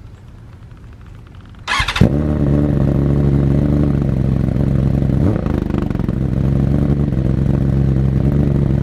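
2021 BMW S1000RR M's inline-four cold-started through a full Akrapovic titanium exhaust: a short burst of cranking about two seconds in, then the engine catches and settles into a steady, loud idle. Recorded right at the muffler.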